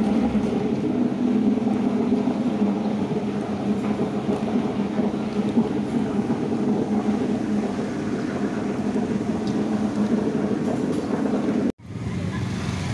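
Steady low rumble of background noise, broken by a brief dropout near the end.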